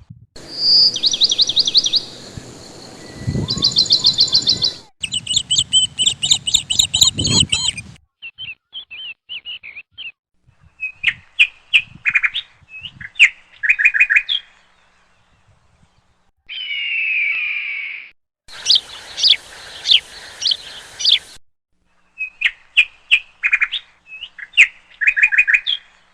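Songbirds chirping: repeated runs of quick, high chirps and trills in several separate bursts that start and stop abruptly, with dead silences between them. A low rumble sits under the first stretch, and a burst of falling, sweeping calls comes about two-thirds of the way in.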